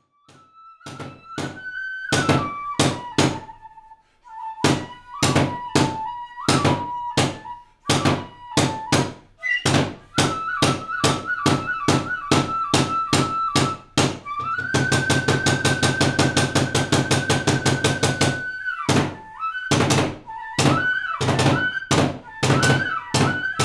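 Background music of Japanese-style drums beating steadily under a flute holding long notes. About two-thirds in, the drums break into a fast roll for about four seconds.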